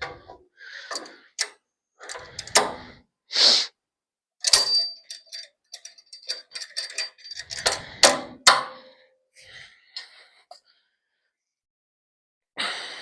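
Steel parts clinking, tapping and knocking as a loose upper air-bag plate and its bolts are shifted into place on a truck's front cross member, with a short metallic ring between about four and a half and seven and a half seconds in.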